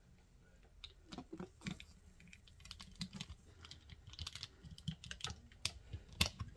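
A quiet run of irregular light clicks and taps, few at first and coming more often from about four seconds in.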